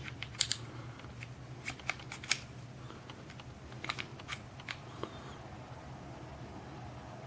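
Scattered light clicks and taps of a Ruger P95 pistol's parts being handled as the slide lock is worked back into the frame during reassembly, over a steady low hum.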